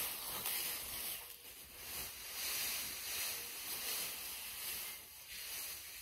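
Dry straw rustling and crackling as it is handled and spread for bedding, coming in swells.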